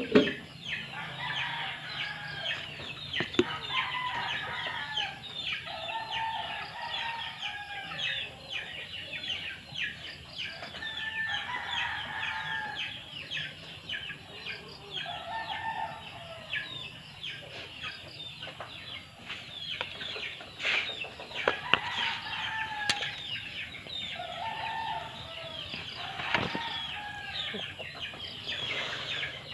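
Chickens clucking, with many short, high chirps running throughout, and a few sharp taps now and then.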